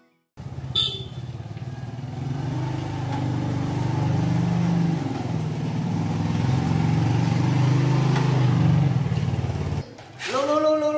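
Small step-through motorbike engine running at low speed as the bike rolls in, then switched off about ten seconds in.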